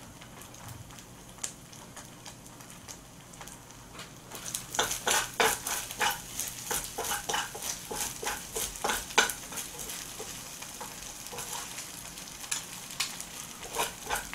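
Fried rice sizzling in a wok-style frying pan while two metal spoons stir it and scrape against the pan. It starts as a faint steady hiss; about four seconds in come quick, irregular scraping strokes, which thin out after about ten seconds.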